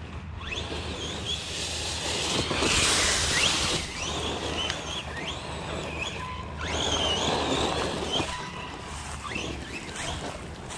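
Losi Lasernut RC truck's brushless electric motor whining, its pitch rising again and again as the throttle is punched and let off. Two bursts of rushing noise are mixed in, the louder one about three seconds in.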